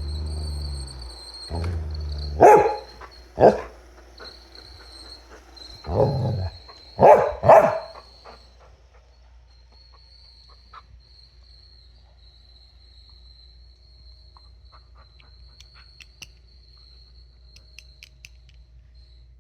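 A dog barks about five times in the first eight seconds, after a low rumbling sound at the start. Then the barking stops, leaving only a faint steady high-pitched tone and a few light ticks.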